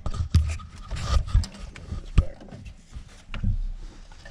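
Irregular clicks, knocks and low thumps as a car's in-tank fuel pump assembly and its plastic line fittings and connectors are handled and fitted by hand.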